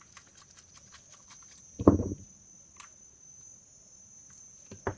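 Faint scattered clicks and taps from handling a spinning reel and a small screw with a metal tool, with one louder short low sound about two seconds in. A steady faint high whine runs underneath.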